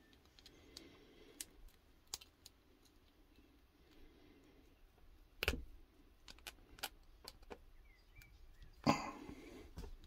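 Small metallic clicks and scrapes of a thin metal padlock shim being worked into the shackle gap of a clear acrylic practice padlock, with two sharper clicks, about halfway through and near the end.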